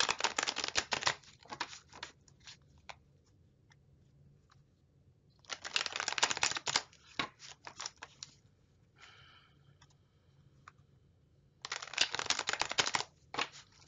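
Tarot cards being shuffled by hand: three bursts of shuffling of about a second and a half each, several seconds apart.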